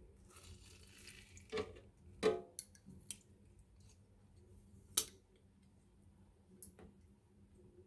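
Handheld metal lemon squeezer clicking and clinking as lime halves are loaded and pressed for their juice: a few faint, scattered clicks, the sharpest about five seconds in.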